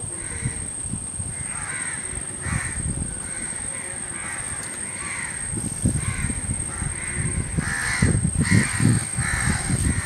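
Crows cawing over and over, call after call, over a thin steady high whine. An irregular low rumble comes in about six seconds in and is loudest near the end.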